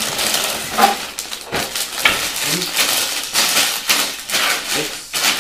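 Plastic bags of LEGO bricks crinkling and rustling as they are handled, with the loose bricks inside rattling and clicking.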